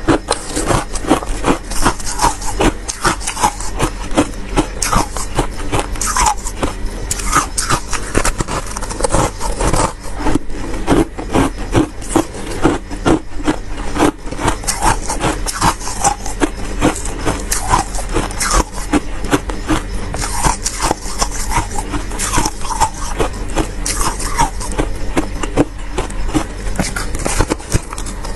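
Freezer frost being scraped and crunched: a dense, continuous run of crisp crackling strokes.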